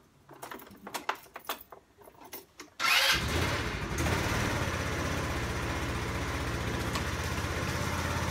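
Italika motor scooter being started on a cold morning: a few light clicks, then about three seconds in the engine catches at once and settles into a steady idle. The cold-morning no-start was traced to a weak battery, which has just been replaced.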